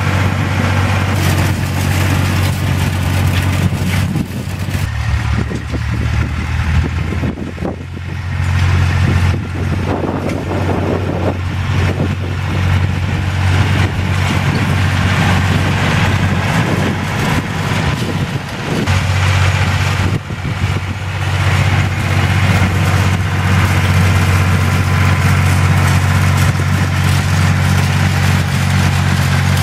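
Ursus C-360 3P tractor's three-cylinder diesel engine running steadily as it pulls a hay rake, a low drone whose note shifts a couple of times as the tractor passes.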